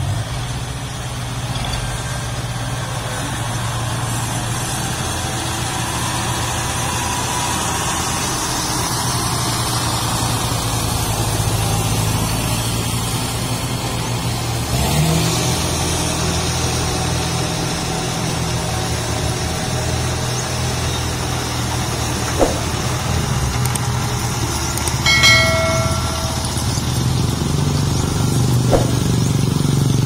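Diesel engines of a Kubota DC-60 rice combine harvester and a farm tractor running steadily as the machines drive off. Late on come two sharp knocks and one brief high-pitched tone.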